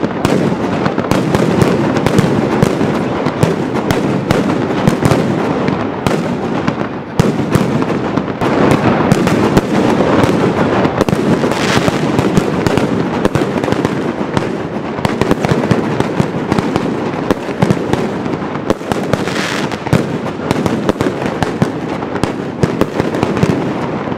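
Mascletà firecrackers and salute shells going off in a loud, dense, unbroken barrage, bangs too rapid to count.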